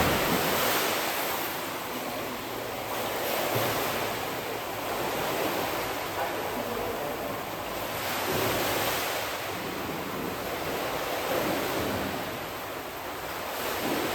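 Water splashing and churning in a swimming pool as a swimmer swims a stroke drill. It is a continuous rushing noise that rises and falls every few seconds.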